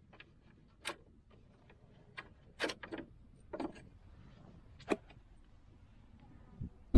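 Light metallic clicks and taps as the linchpins are pulled from a mud-flap bracket and the flap is lifted off: about half a dozen sharp clicks, spaced irregularly.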